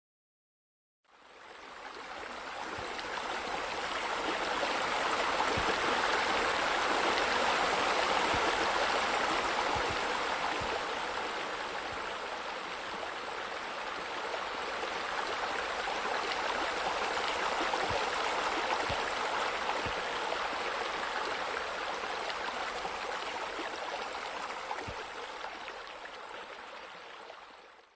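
Running water flowing steadily in an even rush, fading in about a second in and fading out near the end.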